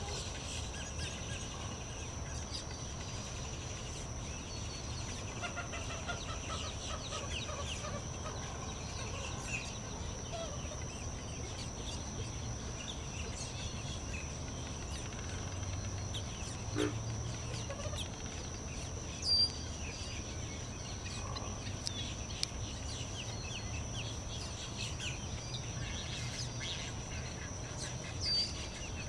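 Marsh birds calling with hen-like clucks and many small chirps over a steady high-pitched insect drone, with a few louder sharp calls in the second half.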